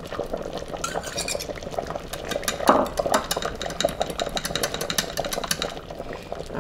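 Wire whisk stirring a butter-and-flour roux into thin stew in a stainless steel Instant Pot inner pot, its wires clicking quickly against the metal, with one louder knock about two and a half seconds in.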